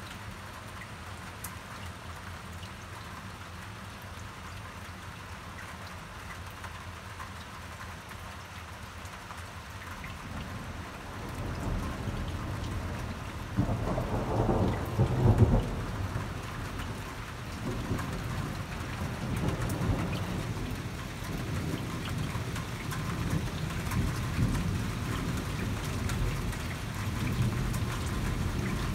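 Thunderstorm: steady rain hiss, then a long roll of thunder that builds about eleven seconds in, is loudest around the middle, and keeps rumbling in low swells over the rain.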